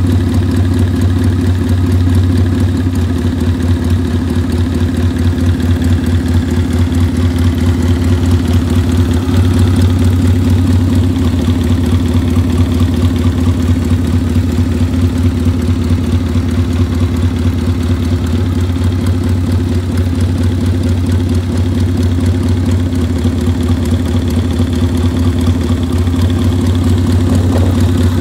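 1939 Triumph T100 Tiger 100's 500cc parallel-twin engine idling steadily, with an even, rapid exhaust beat.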